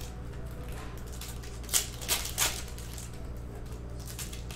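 Plastic trading-card pack wrappers crinkling and being torn open by hand, with a quick cluster of three sharp crackles about two seconds in, over a low steady hum.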